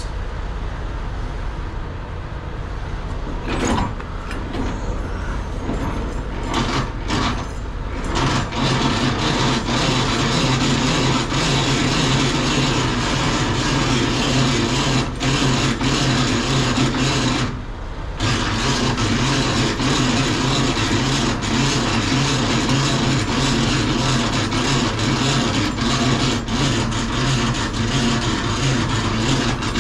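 Semi truck's diesel engine idling steadily, close by and louder from about eight seconds in, with a few knocks before that.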